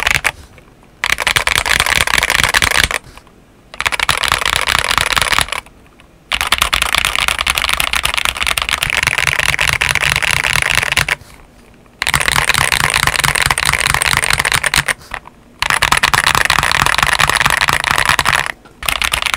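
Fast typing on a modified LK67 mechanical keyboard with Akko CS Vintage White switches and SA-profile PBT keycaps, a dense clatter of keystrokes. The test switches between the stock steel plate and a polycarbonate plate, in runs of a few seconds separated by short pauses.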